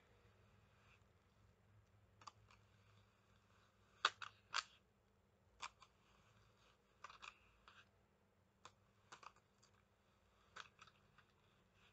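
Wooden hand cards carding merino wool: scattered short scratchy strokes and clicks as the carding teeth brush through the fibre, the loudest a quick group of three about four seconds in.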